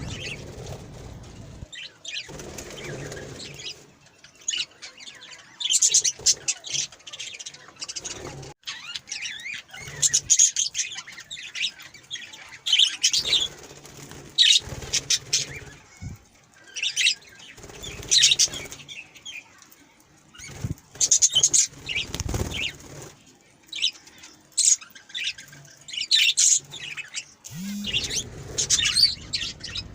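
Pet budgerigars chirping and fluttering their wings in short, scattered bursts.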